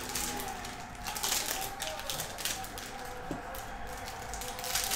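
Bowman baseball card packs being ripped open and handled by hand: wrappers crinkling and tearing and cards rustling, in several short bursts, the loudest near the end.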